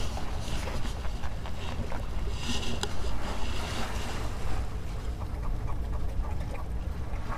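Wind buffeting the microphone with a fluttering rumble, over a steady hiss of sea and surf, with a brief louder rush of hiss about two and a half seconds in.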